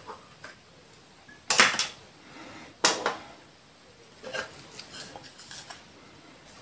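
Small hard objects being handled and set down on a counter: a clatter about a second and a half in, a sharp click a little before three seconds, then a few lighter taps.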